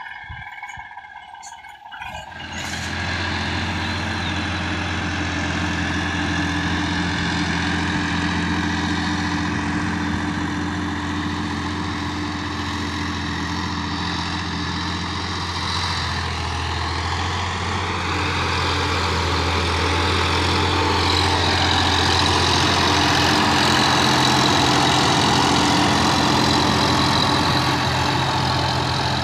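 Sonalika DI-50 RX tractor's diesel engine running steadily under load while its rear-mounted rotavator tills the soil. It is quieter for the first two seconds, then comes up loud and steady, and is a little louder again in the last third.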